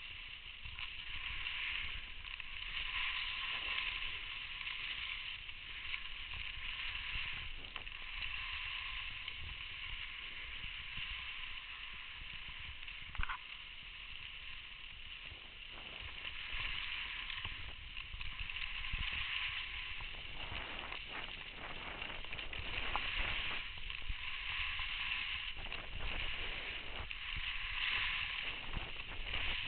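Skis sliding over packed snow: a steady scraping hiss, with wind rumbling on the microphone and a single sharp click about halfway through.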